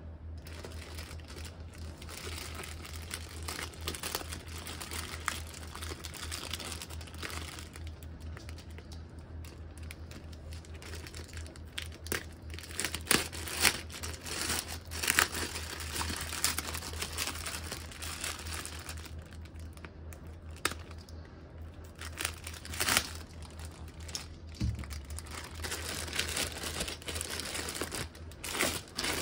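Clear plastic packaging bag crinkling and rustling as it is handled and opened, with louder sharp crackles in the middle and again near the end.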